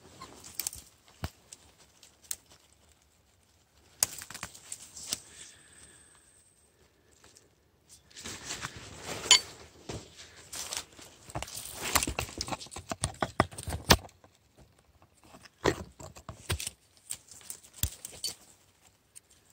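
Dry leaf litter, pine needles and twigs rustling and crackling close to the microphone in irregular bursts with short quiet gaps, as someone moves through forest-floor undergrowth.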